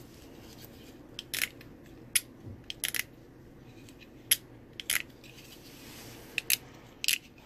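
Switchblade knife being handled and worked, giving about eight sharp metallic clicks at irregular intervals, the kind made by the blade and slide lock moving.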